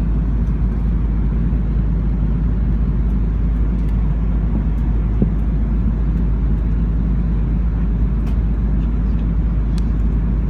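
Steady low rumble of an airliner cabin in cruise flight: engine and airflow noise with a few faint ticks on top.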